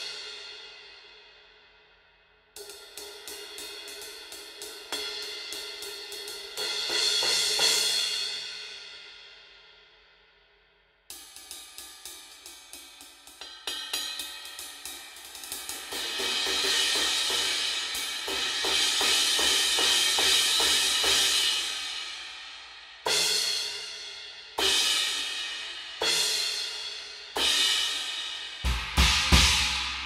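Hand-hammered B20 bronze cymbals (Aisen Dirt Series) struck with drumsticks. A crash rings out and dies away, then two runs of quick strokes build into a bright wash and fade. Near the end come single crash hits about every second and a half, with a low drum thump.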